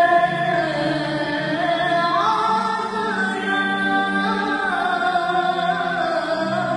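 A young girl singing a hymn to the Virgin Mary, holding long notes that glide between pitches, with a steadier lower sung or sustained part beneath.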